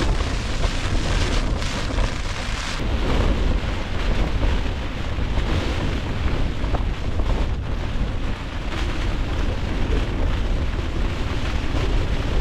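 Storm wind of 30-plus mph gusting against a tent, with a loud, steady rumble of wind on the microphone.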